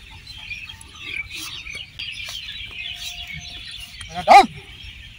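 Birds chirping steadily in the background. About four seconds in comes one loud, short call that rises and falls in pitch.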